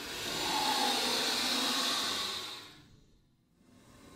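Horror sound effect of a breathy, hissing ghostly exhale that swells over the first second, holds, then fades out about three seconds in; a faint hiss returns near the end.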